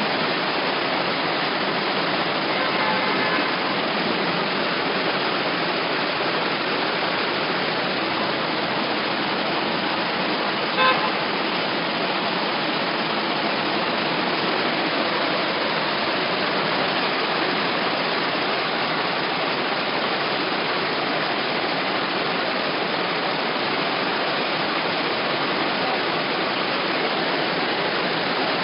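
Steady rush of heavy rain and floodwater running along the street, with a short car horn toot about eleven seconds in.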